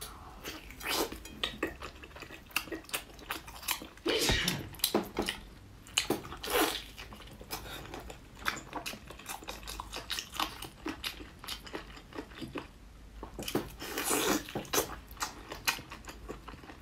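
Close-up eating sounds of a person biting and chewing meat off large braised lamb ribs: many wet mouth clicks and smacks, with two longer, louder stretches of tearing and chewing about four and fourteen seconds in.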